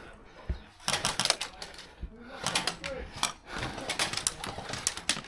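An airsoft gun firing on full auto in three short bursts of rapid clicks.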